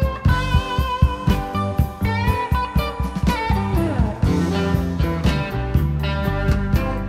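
Background music with a drum beat about twice a second and guitar, including a falling slide a little past the middle.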